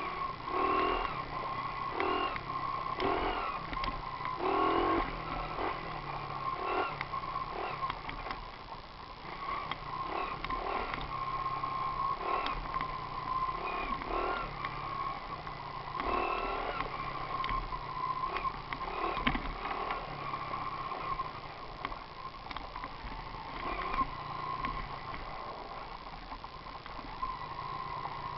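Small engine of a mini moto (pocket bike) running, with a steady high tone and repeated short louder surges as it is revved.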